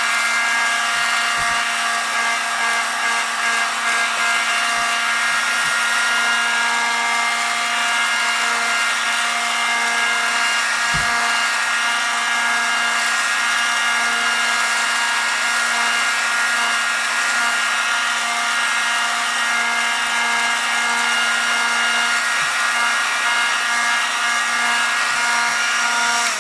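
Heat gun running on low heat to soften the adhesive seal under a phone's rear glass: a steady fan whir with a constant hum. It cuts off right at the end.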